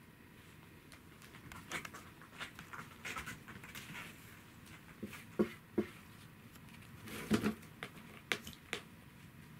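A cat's paw tapping and scraping at a clear plastic insect case. Scattered light clicks, with a few louder knocks from about halfway through.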